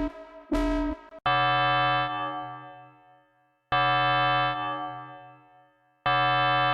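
Music: synthesizer keyboard notes, a short repeated stab and then three long held chords, each struck and left to fade.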